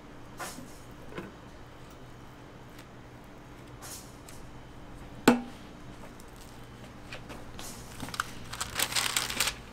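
Food handling at a waffle counter: a few light clicks, one sharp knock about five seconds in, then paper waffle wrappers crinkling and rustling for the last two seconds, over a steady low hum.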